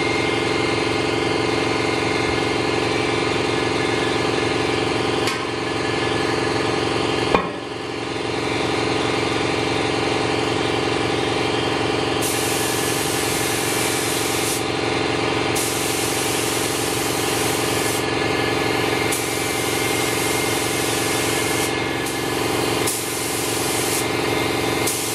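Gravity-feed air spray gun laying on metallic green paint in a string of hissing passes of two or three seconds each, starting about halfway through, over a steady motor hum. One sharp knock about seven seconds in.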